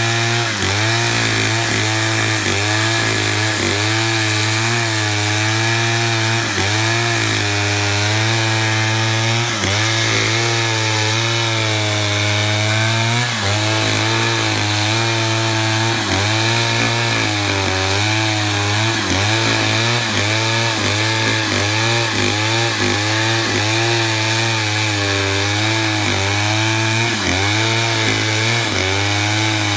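Stihl chainsaw ripping a pine log into rough lumber, running continuously at high revs. Its engine pitch dips and recovers every second or two as the chain bites into the wood.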